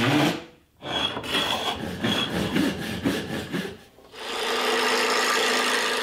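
Hand tools cutting oak: a run of short, uneven rasping strokes, then, from about four seconds in, a brace and bit boring steadily into the oak with an even scraping sound that stops near the end.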